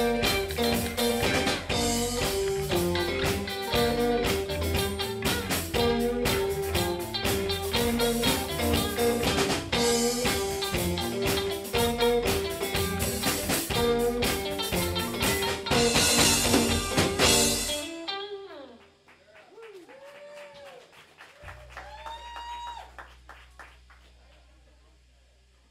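Live country band (electric guitars, bass and drum kit) playing loudly, the song ending about eighteen seconds in. Afterwards a few faint swooping notes and a low amplifier hum.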